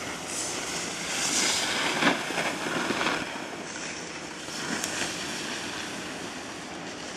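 Wind rushing over the microphone and snow hissing and scraping under a rider sliding down a packed ski slope, loudest from about one to three seconds in, with a sharp knock about two seconds in.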